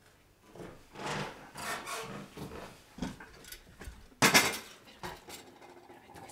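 Handling and movement noises: irregular rubbing and rustling, with one short, sharp, loud scrape or clatter a little after four seconds in.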